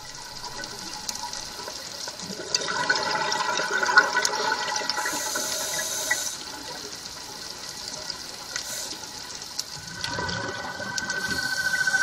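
Water rushing and bubbling, recorded underwater. From about ten seconds in, a steady high whine comes in and grows louder: the electric motor of a diver's underwater scooter.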